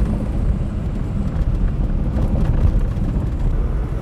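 Car driving on a sand-covered gravel road: a steady low rumble of tyres and engine.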